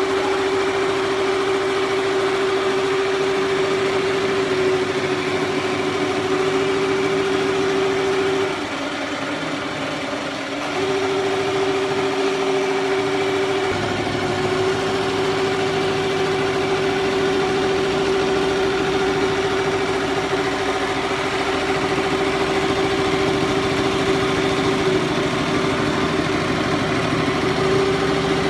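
Single-head He Feng embroidery machine stitching: a steady mechanical hum over a rapid, even rattle of the needle. It eases off for about two seconds roughly a third of the way through, then picks up again.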